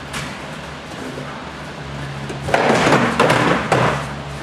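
Padded practice swords and staffs striking in weapons sparring: one hit at the start, then a quieter spell, then several sharp hits in quick succession in the second half.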